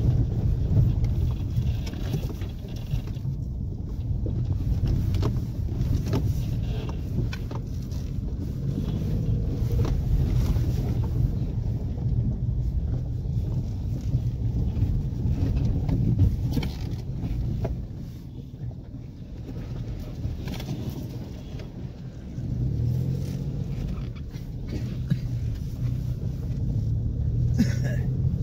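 Car engine running with a low, steady hum as the car creeps over a rough dirt track, with scattered knocks and clicks from the suspension and stones under the tyres. The engine eases off for a few seconds about two-thirds of the way through, then picks up again.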